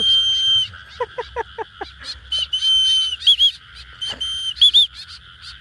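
Shrill whistles calling back a free-flying trained white-breasted woodswallow: long flat whistle notes and short up-and-down double notes, repeated several times. About a second in comes a quick run of five short falling chirps.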